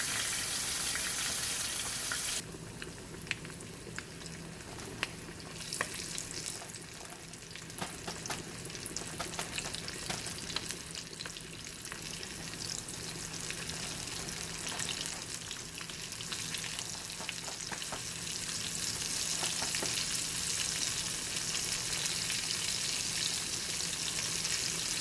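Flour-dusted chicken legs frying in hot oil in a skillet: a steady sizzle with crackling pops. It drops quieter about two seconds in, then builds again toward the end.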